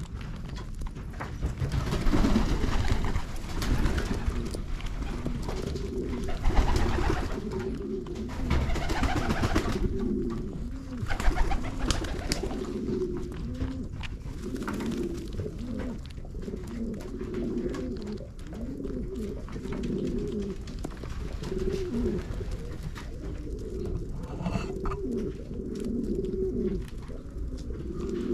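Several domestic pigeons cooing over and over, their low rolling coos overlapping. A few stretches of rustling noise come in the first ten seconds.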